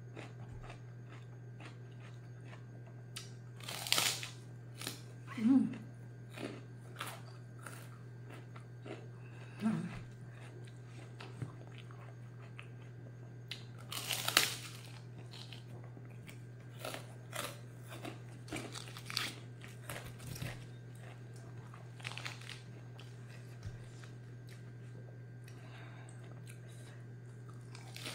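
Close-up eating sounds: crisp bites into raw vegetables and a crunchy cracker, with chewing between. The loudest crunches come about four, five and a half, ten and fourteen seconds in, and smaller crunches and smacks follow through the rest. A steady low hum runs underneath.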